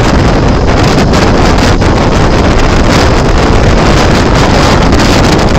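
Loud, steady wind noise buffeting the microphone on a moving Tank Urban 50 scooter, with the scooter's engine running underneath.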